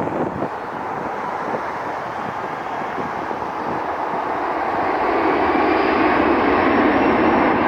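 Jet airliner engines: a rushing rumble that swells louder over the second half, with a faint high whine above it.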